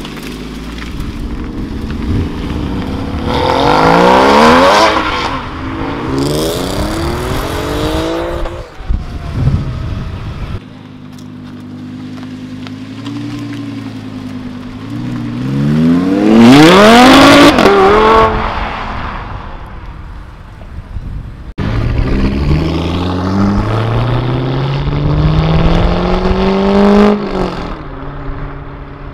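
Sports car engines accelerating hard, in three cuts. First a Porsche Cayman GT4's flat-six pulls away in two rising bursts of revs. Then a Lamborghini Huracán's V10 idles steadily and revs up sharply as it leaves, the loudest moment, followed by another car accelerating away in one long rising pull near the end.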